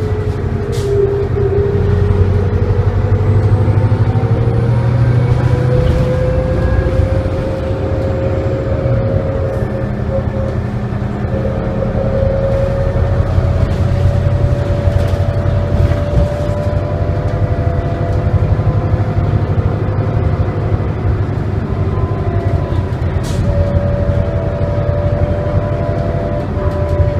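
Interior of a 1999 New Flyer D40LF bus under way, its Detroit Diesel Series 50 engine running with a steady low rumble. Over it a whine climbs slowly in pitch and then holds, with a few sharp ticks of cabin rattle.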